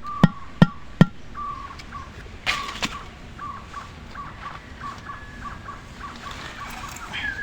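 Sharp knocks, about two and a half a second, stop about a second in. After a brief rustle, a bird calls with a run of short, evenly spaced chirps at one pitch.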